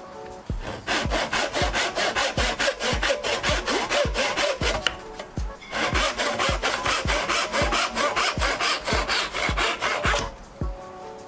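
Brass-backed hand saw (backsaw) crosscutting a wooden strip with rapid, even strokes. The cut pauses briefly about halfway, resumes, and stops about a second before the end.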